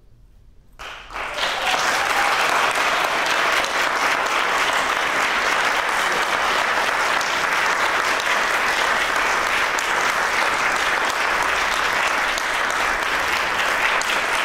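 Audience applauding, breaking out about a second in and holding steady.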